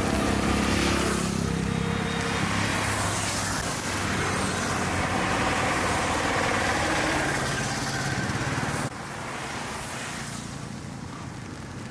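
City road traffic: cars and motorbikes passing close by, with engine hum and tyre noise swelling and fading as vehicles go past. The level drops suddenly about nine seconds in, leaving a quieter traffic hum.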